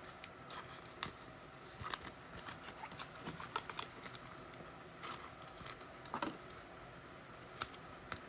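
Faint handling of trading cards and packs: scattered soft clicks, ticks and light rustles as cards are slid and flipped, the sharpest ticks about two seconds in and again near the end.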